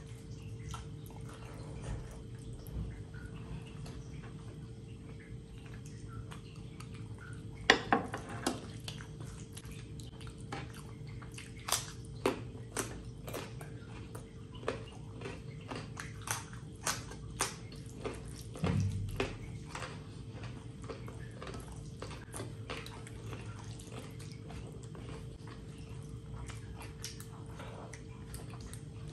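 Wet eating sounds of rice and curry mixed and eaten by hand: soft squelches of fingers kneading rice on a metal plate and moist mouth clicks and smacks while chewing. The clicks come in a busy run from about a quarter of the way in to about two-thirds through, over a faint steady hum.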